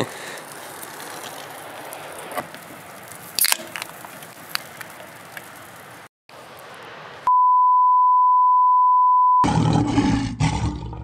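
Faint outdoor background with a few sharp clicks, then a loud steady beep tone for about two seconds, followed by lions growling over a kill.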